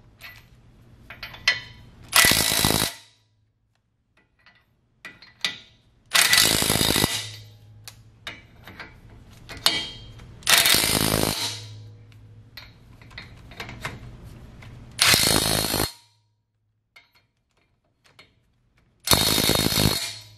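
Cordless impact wrench hammering nuts down onto the front hub studs in five short bursts of about a second each, a few seconds apart, with light clicks between.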